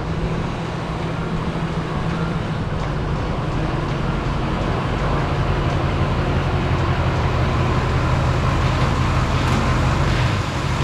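Motor vehicle running on the road: a steady low engine hum with road noise, slowly growing louder.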